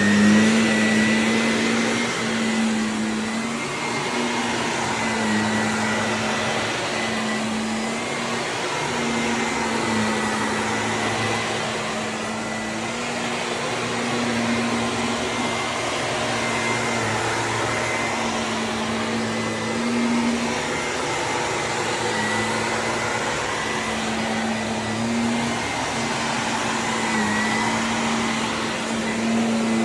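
Vacuum cleaner running steadily, a motor hum and high whine over rushing air, the pitch wavering a little.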